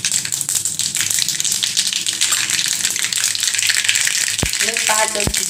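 Mustard seeds spluttering in hot oil in a steel kadai: a dense, steady crackle of many tiny pops over a sizzle. The seeds are splitting as the tempering oil reaches full heat. A couple of sharp knocks come near the end.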